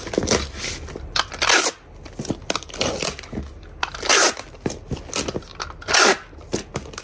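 Plastic packaging crinkling and rustling in short irregular bursts, with a few light clicks, as squishy toys are packed into a parcel.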